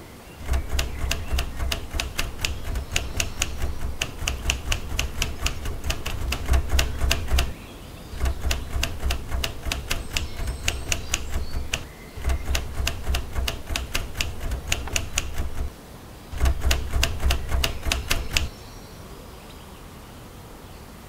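Typewriter keys clacking in quick, even strokes, in four runs with short pauses between them.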